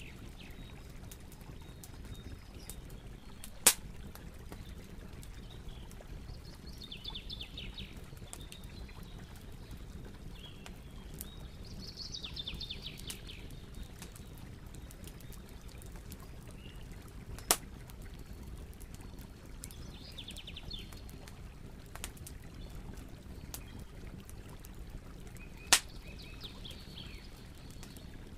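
Birds singing in short bursts of quick chirping notes every several seconds over a steady low background rumble; three sharp clicks break in, louder than everything else.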